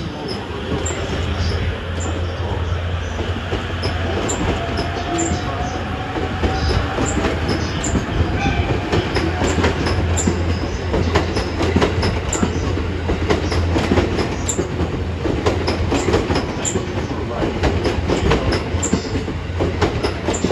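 JR East E257 series 2000-subseries electric multiple unit pulling out of the station and rolling past at low speed. Its wheels click over rail joints and points, more often as it gathers speed, over a steady rumble, with a faint rising whine about a third of the way in.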